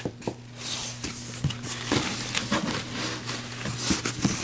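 Light rustling and small knocks of a cardboard box and packaging being handled, over a steady low hum.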